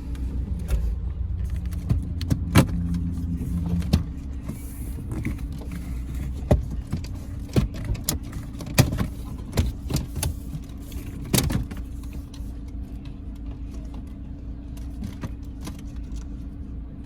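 Plastic dash trim clips snapping and clicking loose one after another as a car's one-piece radio trim surround is pried and pulled off, over a steady low hum.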